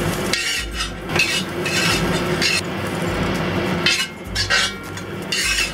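Metal spatula scraping repeatedly across a cast iron wok, a series of short scrapes as stir-fried bamboo shoots are scooped out of the pan.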